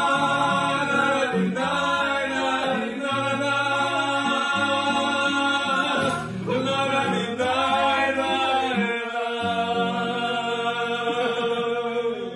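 Men's voices singing long wordless held notes together over an acoustic guitar, with a dog howling along, its voice sliding up and down.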